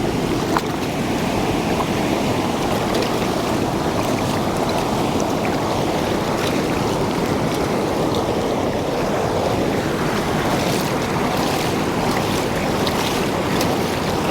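Steady rush of running water, with small splashes and drips scattered through it, while a dog is being washed and rinsed.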